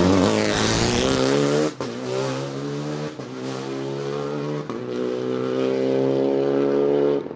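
Renault Clio Rally5 rally car at full throttle, going by close and then accelerating away. The engine pitch climbs through the gears, with three quick upshifts about 1.7, 3 and 4.7 seconds in. The sound cuts off suddenly near the end.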